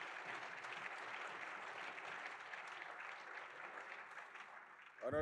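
Applause from the seated members of a parliamentary assembly in a large chamber, thinning out near the end. A brief pitched sound cuts in right at the end.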